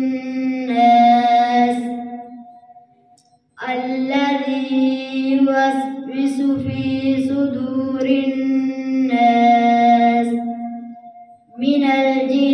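A boy reciting the Quran in the drawn-out melodic tajweed style, holding long notes. There are two pauses for breath, about two and a half seconds in and about eleven seconds in.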